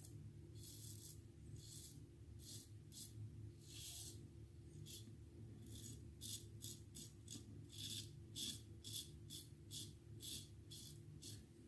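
Razor scraping through lathered stubble in a run of short strokes, each a brief rasp, sparse at first and about two to three a second in the second half, over a steady low hum.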